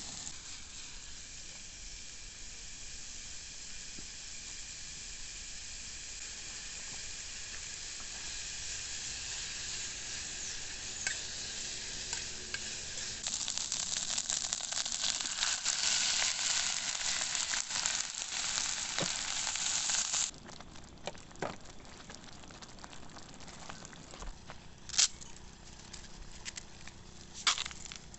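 Food frying in a pan, a steady sizzle that grows louder for several seconds and then cuts off suddenly about twenty seconds in. A few sharp knocks follow in the quieter stretch after it.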